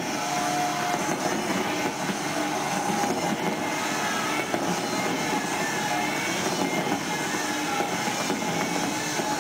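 A large fireworks barrage heard through a television broadcast as a steady, dense rumble and crackle with no single bang standing out.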